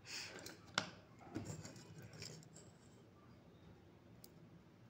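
Faint handling sounds of a soldering iron working on the LED strip inside a metal panel-light ring: a few light clicks and taps in the first couple of seconds and a single thin tick about four seconds in, otherwise near quiet.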